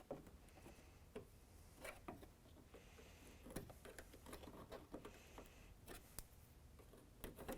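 Near silence with faint, scattered clicks and taps of plastic trim and its push-in fasteners being handled and worked loose by hand.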